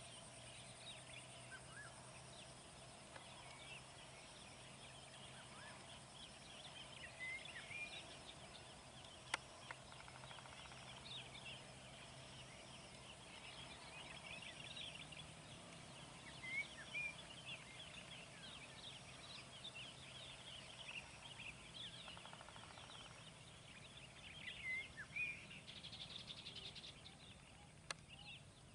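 Faint chorus of birds singing, many short high chirps and whistles overlapping throughout.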